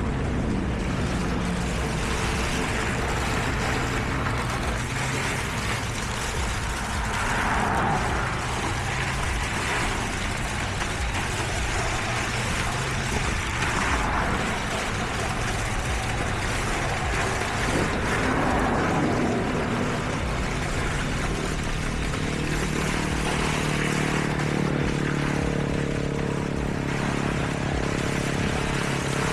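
Heavy diesel construction machinery running steadily, with a few brief louder swells of noise along the way.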